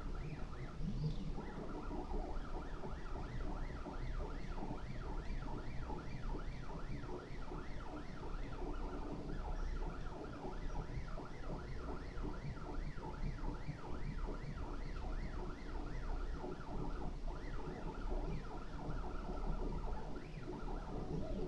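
Stepper motors of a Prusa i3 RepRap 3D printer whining as they drive the print head and bed back and forth in short strokes, the tone rising and falling a few times a second.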